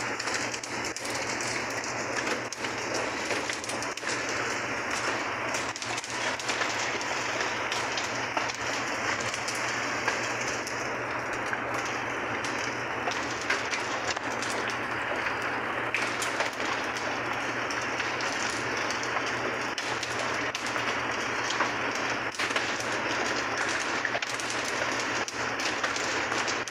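Hail falling with rain: a steady, dense patter on paving and surfaces, with many sharper ticks from single hailstones striking.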